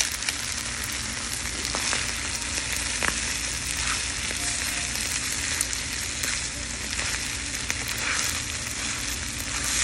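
Hot stone bibimbap bowl sizzling steadily, with a few faint scattered crackles as the rice scorches against the hot stone.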